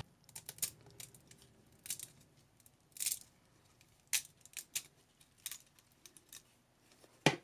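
3D-printed ABS support lattice snapping and tearing as it is pulled by hand from a steering-wheel pattern: scattered, irregular sharp cracks and clicks, the loudest near the end.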